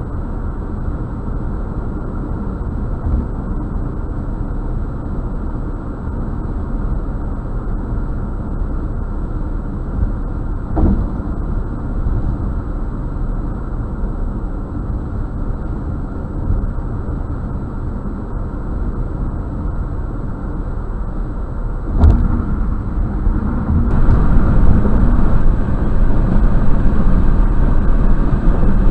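Car driving at highway speed, heard from inside the cabin: a steady low rumble of tyres and engine. There is a short knock about a third of the way through and a thud a little after two-thirds, and the rumble gets louder for the last few seconds.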